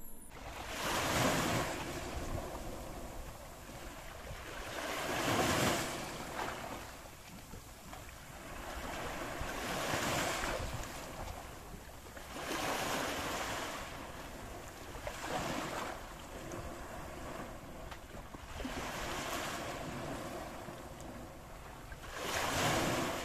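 Sea waves washing onto a beach, each surge swelling and fading about every three seconds, with some wind on the microphone.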